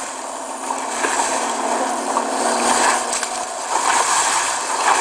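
Water splashing over a steady rushing noise, swelling louder a few times.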